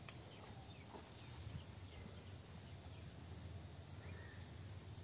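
Quiet outdoor ambience with a faint steady low hum and no distinct events.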